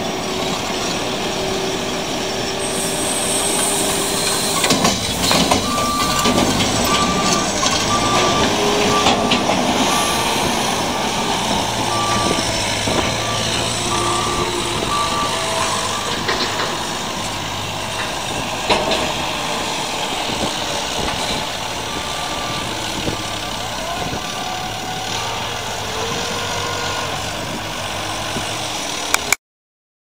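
Farm machinery running: the engines of a JCB telehandler and a tractor working, with a reversing alarm beeping in an even pulse for about ten seconds from around five seconds in, and again briefly later. The sound cuts off abruptly just before the end.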